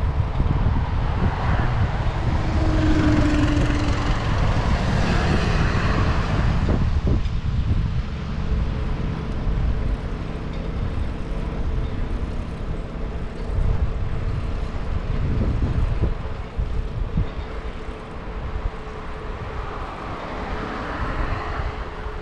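Wind rumbling and buffeting on the microphone of a bicycle-mounted action camera while riding, mixed with rolling noise. A louder rushing stretch runs through the first several seconds, then eases.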